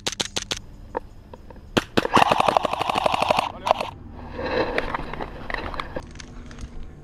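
Airsoft guns firing: a quick run of about five snappy pistol shots at the start, a couple of single shots, then a rapid full-auto burst of about a second and a half beginning about two seconds in.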